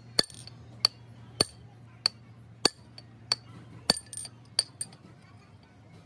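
Sharp, ringing metal-on-metal clinks, about ten of them, roughly one every half second and a little quicker near the end: a steel rod tapping against the steel sleeve being fitted into a hydraulic breaker's body.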